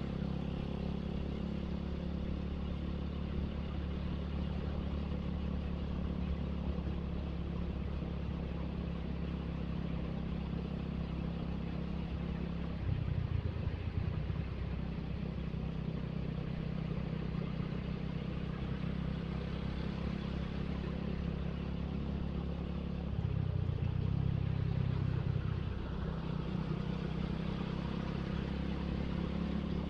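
Motorcycle running at a steady cruise with road and wind noise, a Suzuki Satria FU ridden through traffic; the engine sound grows briefly louder twice, once about halfway through and again for a few seconds later on.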